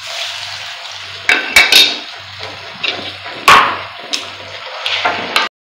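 Ground moong dal paste sizzling as it drops into hot ghee in an aluminium kadai, with a few sharp knocks against the pan. The sizzle cuts off suddenly near the end.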